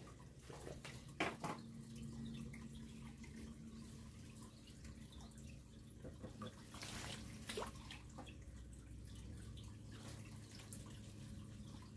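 Faint water sloshing and dripping as a long-handled hand net is swept through a shallow tarp-lined fish pond, with a few short splashes, the loudest about seven seconds in. A faint steady low hum runs underneath.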